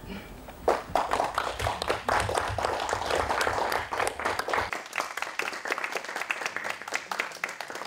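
A small audience applauding, starting about a second in.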